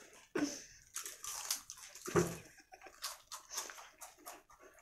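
Potato chips being handled and crunched, a run of irregular short crackles, with one louder low sound about two seconds in.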